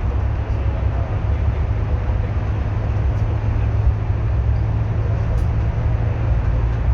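Steady low engine and road rumble of a moving bus, heard from inside the cabin.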